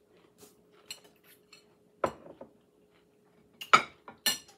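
A metal fork clinking and scraping against a salad bowl: a handful of separate sharp clinks, the loudest about three and a half seconds in.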